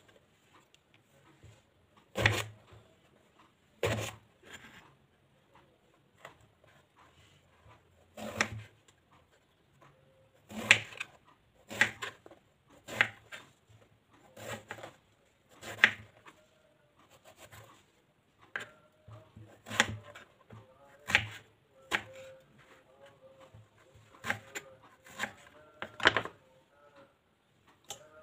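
Kitchen knife cutting a purple eggplant and knocking on a bamboo cutting board: an irregular series of sharp chops, often about one a second, with a couple of longer pauses.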